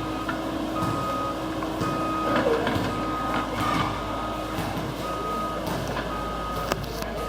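Excavator's travel alarm beeping about once a second, pausing for about a second and a half midway, over the steady running of its diesel engine. Knocks and scrapes of lava rock being moved sound through it.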